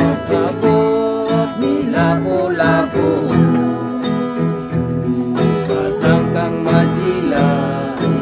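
A man singing in a Philippine language while strumming an acoustic guitar, the strummed chords steady under the wavering voice.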